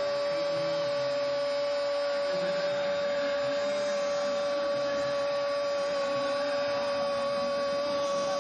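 Steady stadium crowd noise with a constant high droning tone running through it.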